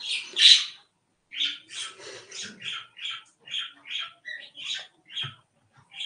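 A bird chirping over and over in short, high-pitched calls, about three a second, loudest at the very start and thinning out near the end.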